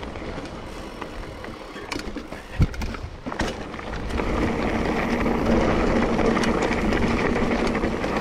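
Mountain bike rolling along an overgrown dirt trail: tyre and brush noise with a few sharp knocks from bumps, getting louder about four seconds in.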